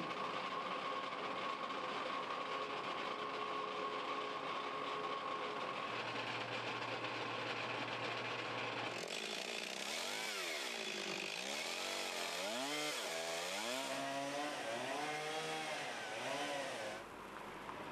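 Steady machine noise with a constant whine, then about halfway in a two-stroke chainsaw revving up and down again and again as trees are cut up, cutting off near the end.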